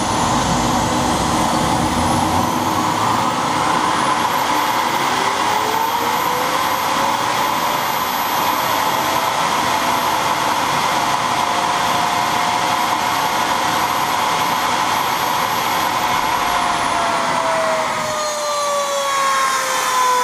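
Homemade turboshaft engine running at full power: a loud roar with a high turbine whine that climbs over the first few seconds, holds steady, then falls away near the end as the engine is shut down. The builder links its peculiar sound to something amiss with the bearings.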